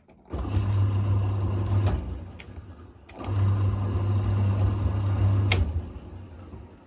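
Thompson TD120 compact tumble dryer switched on briefly twice, its motor humming for about two seconds each time, with sharp clicks from its controls as it starts and stops.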